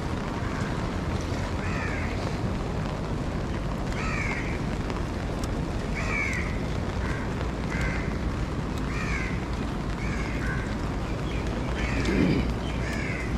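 Crows cawing repeatedly, a short falling call every second or two, over a steady rush of rain and wind. A brief louder low sound comes near the end.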